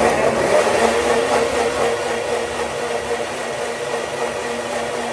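Electric mixer grinder (mixie) running steadily at speed, its motor humming as the steel jar blends bananas for a banana shake.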